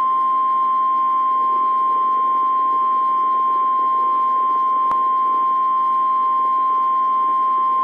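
NOAA Weather Radio's 1050 Hz warning alarm tone: one steady, single-pitched beep over radio hiss, the alert signal that announces a severe thunderstorm warning. A faint click comes about five seconds in.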